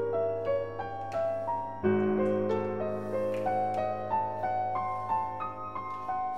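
Background piano music: a melody of single notes climbing in steps over a held low note.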